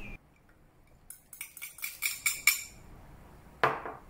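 Chopped red chilies tipped into a plastic blender jar: a quick run of light clicks and clinks as the pieces drop in, then one louder knock near the end.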